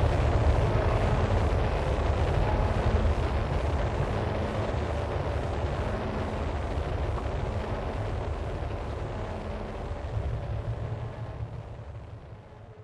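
Dense, rumbling noise music, heaviest in the bass with a few faint held tones above it, fading out over the last few seconds as the track ends.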